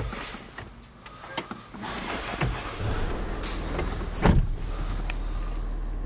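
Clicks and small knocks from a car's cabin fittings, a louder thump a little past four seconds in, then a steady low hum.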